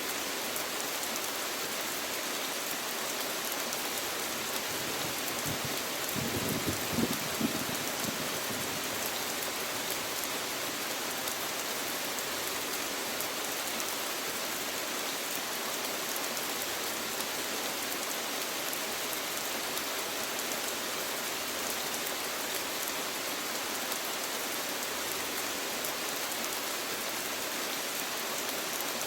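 Steady rain falling and pattering on surfaces, an even hiss. About six to seven seconds in, a few low thumps come through briefly.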